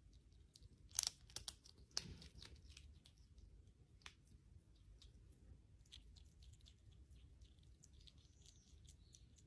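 An animal chewing, with faint crunches and a few sharp clicks, loudest about one and two seconds in; otherwise near silence.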